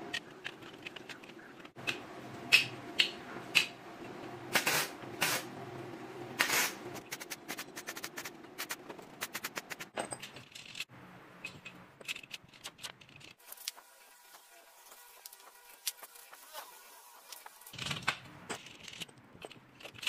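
Metal clinking and knocking as steel frame tubing and parts are handled and fitted by gloved hands: an uneven string of sharp taps, with several louder knocks between about two and seven seconds in.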